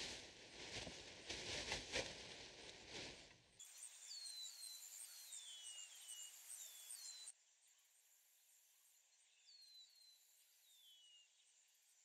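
Rustling with a few sharp knocks for the first three and a half seconds, then faint outdoor ambience in which a bird gives short chirps that fall in pitch, several in a row.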